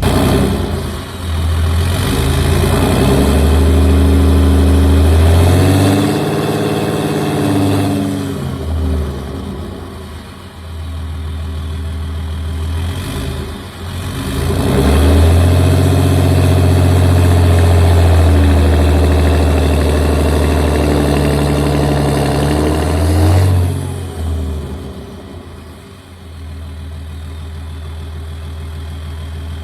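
Pickup truck engine revving hard and held under load in two long pulls, the first lasting several seconds and the second about eight seconds. It drops back towards idle in between and after, as the truck strains on a strap to pull out a tree stump.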